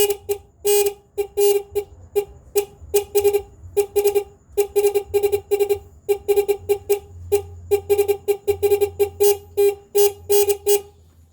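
Electronic caller device (a 'Cicada' 14-tone unit) playing its fourteenth tone: a rapid, uneven series of short buzzy pulses on one low note, stopping near the end.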